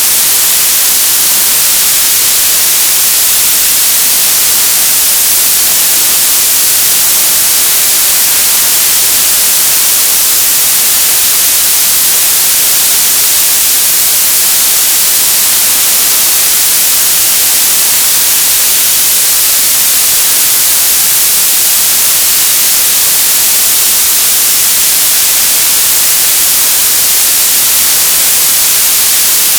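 TV static: a loud, steady hiss, strongest in the high frequencies, that does not change.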